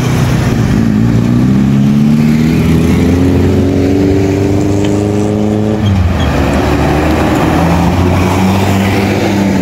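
A motor vehicle's engine pulling away under load. Its pitch rises steadily for about five seconds, drops suddenly at a gear change about six seconds in, then climbs again.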